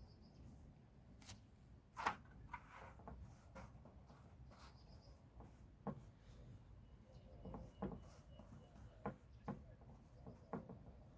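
Quiet, scattered light clicks and knocks, about a dozen, the loudest about two seconds in, with faint short high chirps of a small bird now and then.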